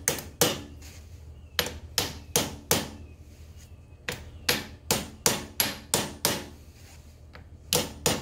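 Ball-peen hammer tapping, about fifteen sharp strikes in short runs of two to three a second with brief pauses between runs. The hammer is driving a new rubber grease seal down onto a 1950 Farmall Cub's front wheel spindle, with light blows so as not to bend the seal.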